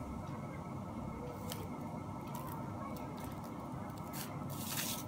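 Hands working crumbly steamed rice-flour dough in a steel bowl: scattered short scrapes and crackles of fingers through the dough and against the metal, the longest one near the end, over a steady low hum.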